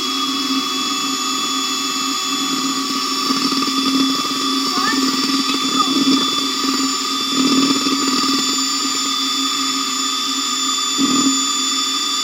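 Handheld electric mixer running at a steady speed, its beaters whipping a thick cream mixture in a bowl, with a constant motor whine and louder churning about 7 and 11 seconds in.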